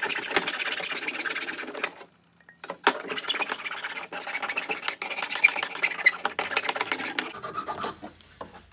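Hand file rasping in quick back-and-forth strokes across the cut edge of metal square tubing, smoothing the rough edges of a freshly ground notch. The filing breaks off briefly about two seconds in and eases off near the end.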